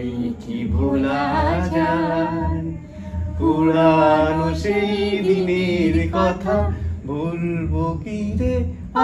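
A woman singing a Bengali song unaccompanied, drawing out long, slightly wavering held notes between shorter phrases.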